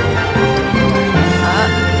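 Background music with a steady bass and held notes.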